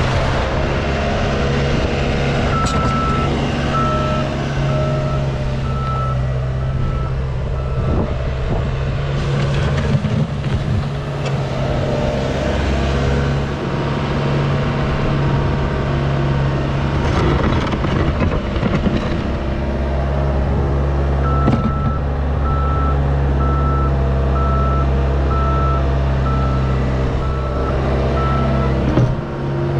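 Cat 242D skid steer's diesel engine running under load as it plows snow, with its reversing alarm beeping steadily twice for several seconds as it backs up.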